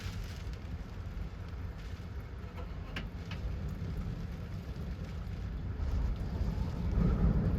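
Wind gusting against a truck camper shell: a low, fluctuating rumble that swells louder near the end, with two light clicks about three seconds in.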